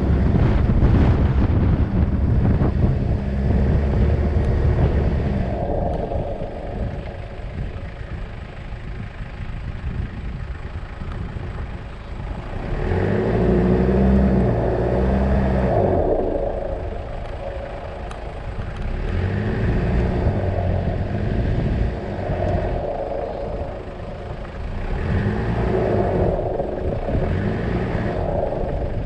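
A vehicle engine running, its note swelling and easing every few seconds.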